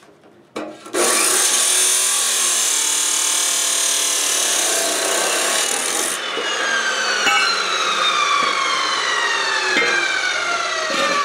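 Abrasive chop saw starting up, its cutoff wheel grinding through square steel tubing with a harsh hiss for about five seconds. The motor is then switched off and the wheel spins down with a falling whine.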